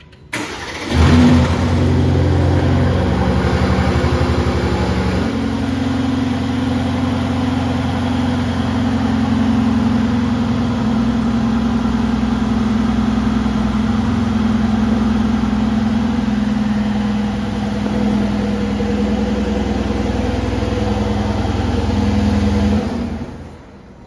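Aston Martin DB11 Volante's twin-turbo V8 starting up with a sharp flare about half a second in, running at a raised fast idle for about five seconds, then dropping to a steady, lower idle heard through the exhaust. The engine is switched off about a second before the end.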